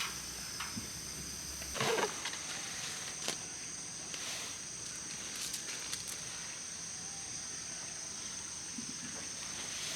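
Insects chirring steadily in two high-pitched tones, with scattered light rustling and clicks and a louder rustle about two seconds in.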